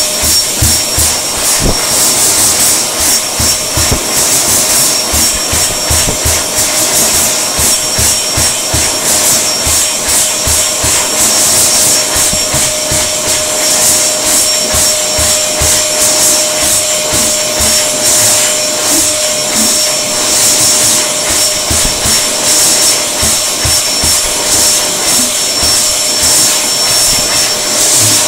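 A World Dryer Airforce high-speed hand dryer running with a hand under the outlet: a loud, steady rush of air with a thin steady whine running through it.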